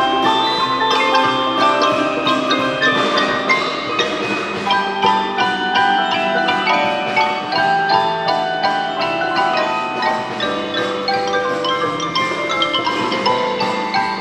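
High school percussion ensemble playing a festive piece: pitched, struck notes over a steady run of quick, evenly spaced strokes.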